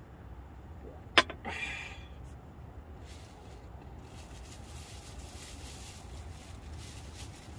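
A small cup set down on a wooden tabletop with one sharp clack, followed by crinkling and rustling of the plastic wrap around a roast chicken as it is torn apart with chopsticks and fingers.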